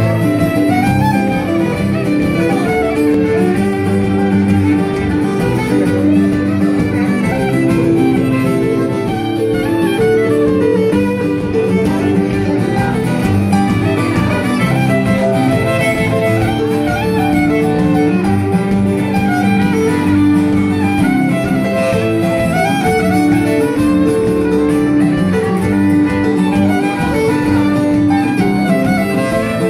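Fiddle playing a lively traditional Acadian tune, with an acoustic guitar strumming chords beneath it without a break.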